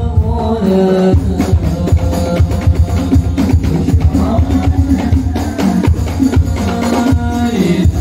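Sholawat, Islamic devotional songs, sung by a group of young men through microphones and a loudspeaker, over a fast, steady beat of hand drums.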